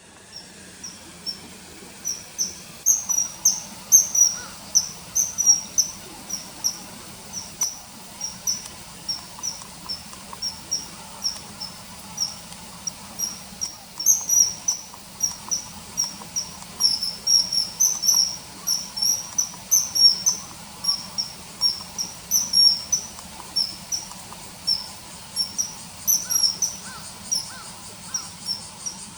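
Common kingfisher calling: a long run of short, sharp, high-pitched piping notes, two or three a second, over a faint steady insect trill.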